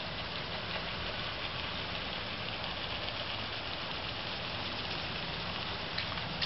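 A steady low hum with a hiss over it, like an engine idling at a distance.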